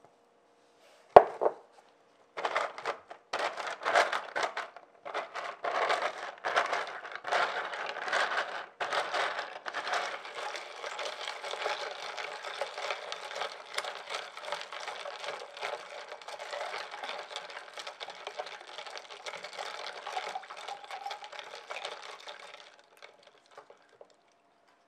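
A spatula stirring ice, distilled water and sodium hydroxide in a plastic measuring jug: ice crunching and scraping against the plastic as the lye solution is mixed. The stirring comes in separate strokes at first, then runs on steadily and stops a couple of seconds before the end. There is a single sharp knock about a second in.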